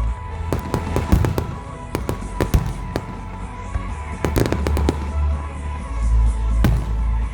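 Fireworks going off in quick clusters of sharp bangs and crackles, with a last single bang near the end, over music playing steadily underneath.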